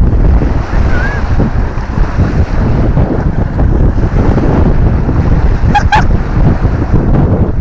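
Wind buffeting the microphone over small waves washing up the beach, with two short high pitched sounds close together near the end.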